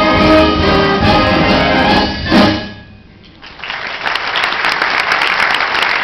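Concert wind band playing the last bars of a piece, with brass prominent, ending on a loud final chord about two and a half seconds in. After a moment's hush the audience breaks into applause.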